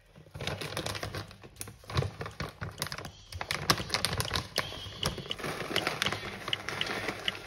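Plastic granola bag being handled and crinkled, the granola rattling inside it: a dense, irregular patter of small sharp clicks and crackles.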